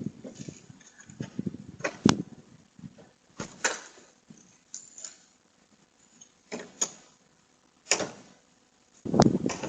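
A few separate sharp clicks and knocks, a second or more apart, like handling at a door, picked up by a doorbell camera's microphone. Near the end a louder, rough rumbling noise sets in.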